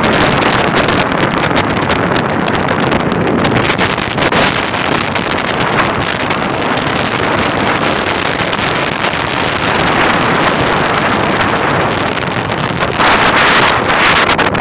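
Strong wind buffeting the microphone: a loud, steady rushing noise with gusts, growing louder and brighter about a second before the end.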